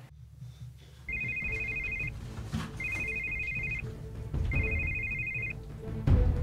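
A telephone rings electronically: three one-second rings of two warbling tones, with short gaps between them, over a low rumble. A heavy low thump comes near the end.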